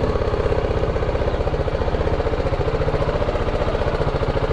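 BMW G310 GS's single-cylinder engine idling with a steady, even beat as the motorcycle creeps slowly forward.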